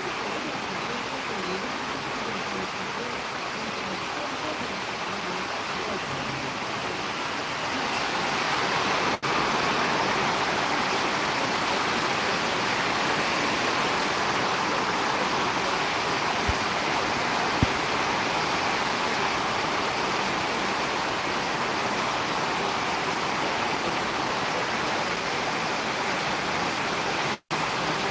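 Steady hiss of rain during a storm, growing louder about eight seconds in. It cuts out for an instant near the end.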